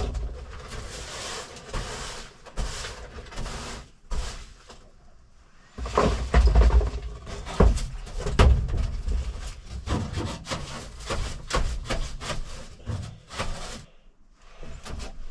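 Irregular knocking, clattering and scraping of hand work on a truck cab's interior, with a run of heavier thumps about six seconds in.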